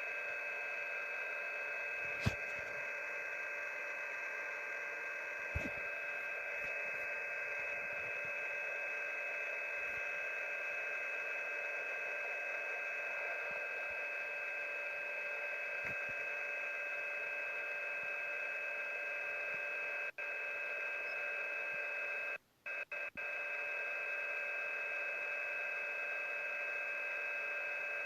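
Shortwave radio reception of a steady chord of three electronic tones held over static hiss, which drops out for an instant about 20 seconds in and again a couple of seconds later. There are two sharp clicks, a few seconds apart, near the start.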